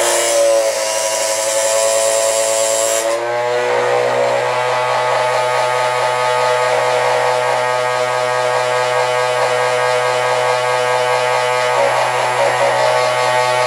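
Old Nielson chainsaw-chain grinder running: its electric motor hums steadily throughout. For about the first three seconds the grinding wheel hisses against a chain cutter, and the motor's pitch shifts under the load, then steadies once the wheel comes off.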